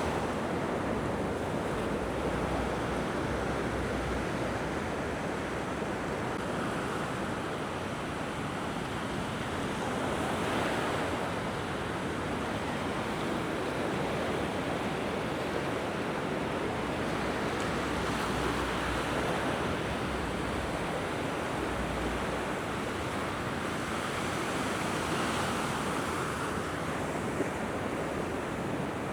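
Mediterranean waves breaking and washing up the beach, swelling and easing every several seconds, with breeze buffeting the microphone in low rumbles.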